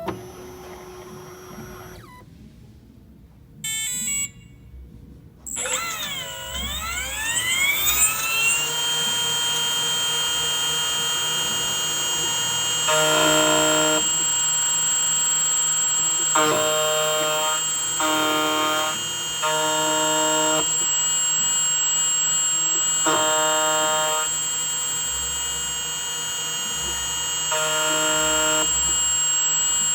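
Key cutting machine's cutter motor spinning up, its pitch sweeping before settling into a steady high whine. Over the whine, a stronger tone about a second long comes in again and again during the calibration cut.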